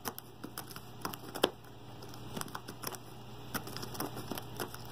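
Cats eating dry cat treats: faint, irregular crunching and clicking, several small crunches a second.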